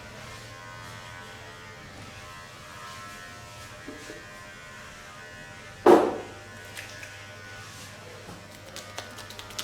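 Steady electric buzz of a small handheld appliance, with one loud sharp hit about six seconds in.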